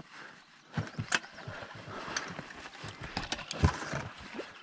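Irregular knocks, taps and clicks of fish and gear being handled in a fishing boat, about a dozen scattered sharp strikes with quieter rustling between them.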